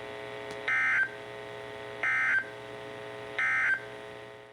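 EAS end-of-message signal on a NOAA Weather Radio broadcast: three short bursts of two-tone digital data, each about a third of a second long and about a second and a half apart. A steady hum from the radio runs underneath and fades near the end.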